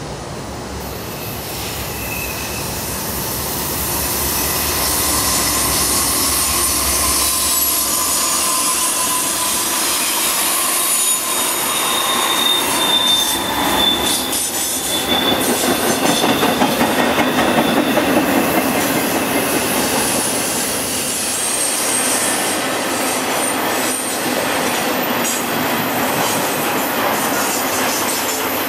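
Train cars rolling past with their wheels squealing in a curve: high, steady squeal tones come and go over a continuous rumble of wheels on rail. It builds up over the first few seconds and is loudest a little past the middle.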